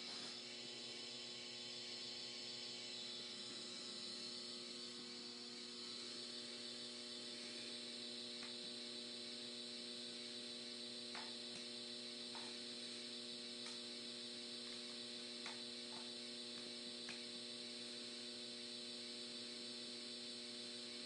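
Steady electrical hum with several fixed tones, and a few faint clicks now and then.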